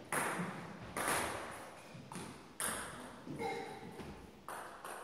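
Table tennis ball bouncing: about six separate light clicks at uneven intervals, each with a short ringing tail.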